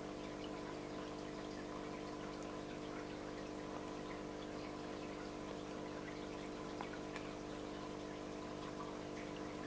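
Steady, faint hum with several fixed pitches, like a small pump or motor running, with a few small ticks of water dripping from a wet moss-covered rock lifted over a dish of water.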